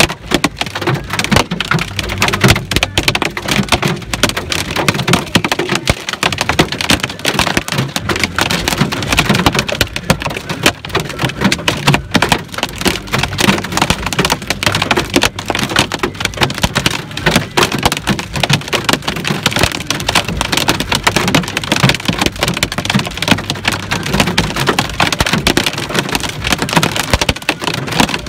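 Hailstones about an inch across and rain hitting a car's roof and windshield, heard from inside the cabin: a dense, continuous clatter of hits.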